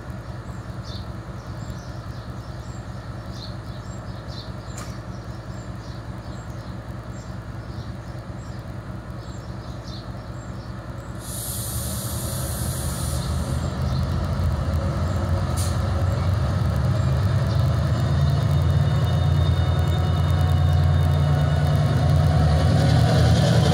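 Class 68 diesel-electric locomotive's Caterpillar V16 diesel idling steadily, then a sharp hiss of air for about two seconds about halfway through as the train's air brakes release. The engine's low note then builds in loudness as it powers up and the locomotive starts pulling the freight train away.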